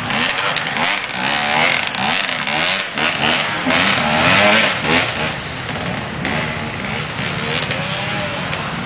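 Off-road dirt bike engines revving up and down, the pitch rising and falling with the throttle, loudest about four seconds in.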